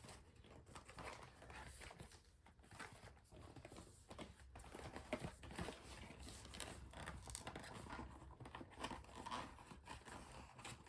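Faint, irregular crinkling and rustling of card packaging being handled, with small clicks throughout.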